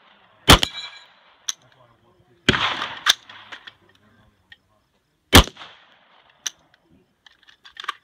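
AR-15 rifle fired about four times in slow, irregular succession, with each shot a sharp crack. A short ringing tone follows the first shot.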